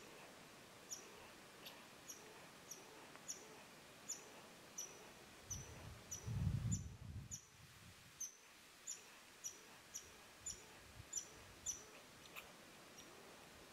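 Faint, high, thin chirps from a small bird, each dipping slightly in pitch, repeating every half second to a second. A brief low rumble about six seconds in is the loudest sound.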